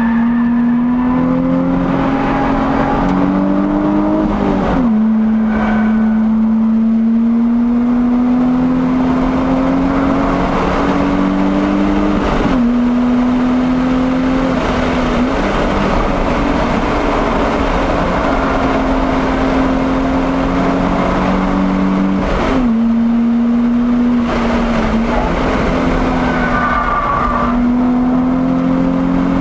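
Nissan 350Z's 3.5-litre V6 pulling hard, heard from inside the cabin over road and wind noise. Its pitch climbs steadily and falls sharply at several gear changes of the manual gearbox.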